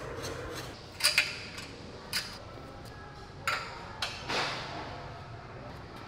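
Scattered sharp metal clinks and knocks from tools and steel parts being handled on a welded steel car chassis: two close together about a second in, then single ones spaced out, over a low steady hum.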